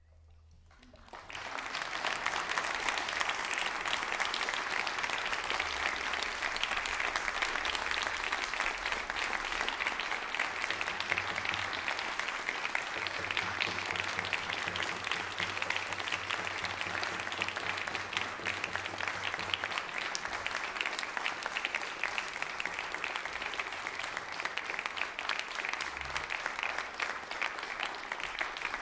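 Audience applauding: clapping breaks out about a second in after a near-silent pause and builds quickly to a steady, dense applause.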